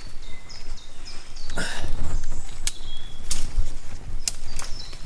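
Footsteps and a few sharp cracks of wood as someone clambers across a rotten tree trunk lying over mud, with a bird singing in the background.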